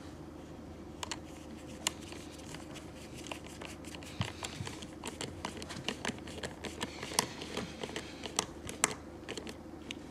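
Scattered light clicks and taps of plastic and metal parts being handled and fitted on a Stihl chainsaw as its air filter goes back on, more frequent in the second half.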